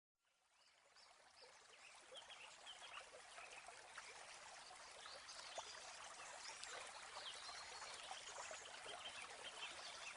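Faint water trickling, fading in over the first two seconds, dotted with many short high chirps.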